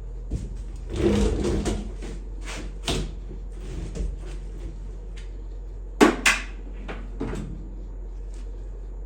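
Metal clanks and knocks from handling timing-chain parts on the engine front: a scraping rattle about a second in, a few light knocks, then two sharp metal knocks close together about six seconds in.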